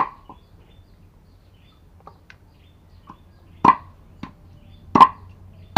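A cleaver chopping meat: sharp knocks at uneven intervals, a few faint taps at first, then two loud strikes in the second half and another at the end.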